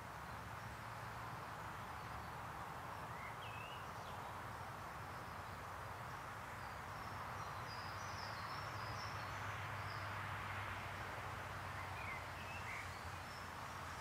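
Woodland ambience: a steady outdoor hiss with a low background hum, and faint scattered bird chirps and short calls at several points.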